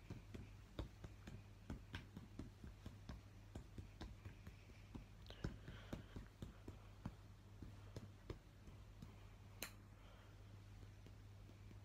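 Light, irregular clicks and taps, a few a second, with one sharper click near the end, over a low steady hum in a quiet room.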